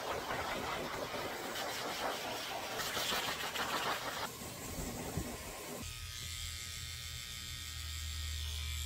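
Rush of air from a pet dryer's hose blowing on a wet dog, easing after about four seconds. About six seconds in, a Wahl electric clipper starts a steady buzzing hum.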